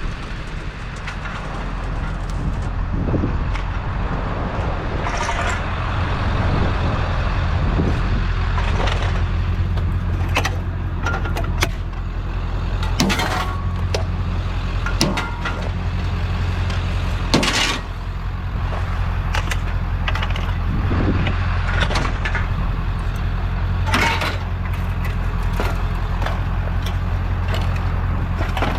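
Truck engine idling steadily, with scattered sharp metal knocks and clanks as a scrap metal railing is pulled loose and handled; the loudest knocks come about halfway through and again near the end.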